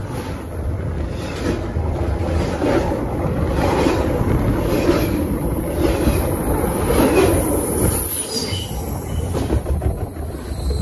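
CN train cars rolling directly over a phone lying between the rails: a loud, continuous rumble and rattle of steel wheels on the rails with repeated clacks as the wheelsets pass. A few brief high wheel squeals come near the end.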